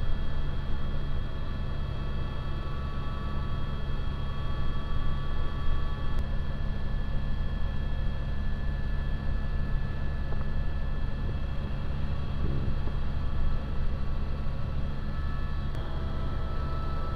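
Helicopter in flight, heard from inside the cabin: a steady low rotor drone with a steady high-pitched whine over it. The whine shifts slightly in pitch near the end.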